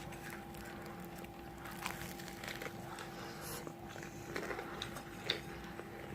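Close-up biting and chewing of crispy fried food, with scattered short crunches and crackles.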